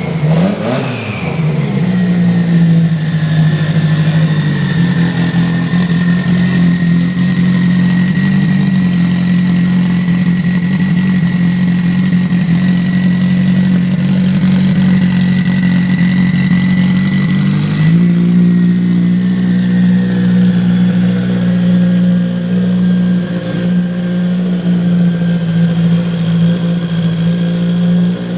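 Turbocharged Subaru STI drag car's flat-four engine running, settling from a quick rev into a steady idle in the first couple of seconds. A thin steady whine sits over the idle, and the engine note shifts slightly about 18 seconds in.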